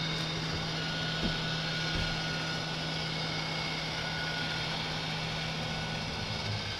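Fan-Tastic Fan RV ceiling vent fan running with a steady low hum. The hum stops near the end as the fan switches itself off with the vent lid closed, the way it does when the rain sensor trips.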